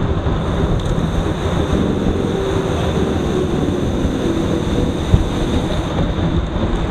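Steady wind noise buffeting the microphone, with road rumble from a mountain bike rolling on pavement among a pack of riders.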